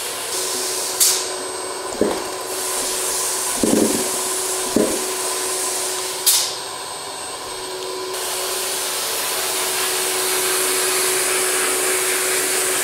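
Abrasive blast cabinet running as a chrome-plated spring is sandblasted: a steady hiss of air and blasting media with a steady motor hum, broken by a few short knocks.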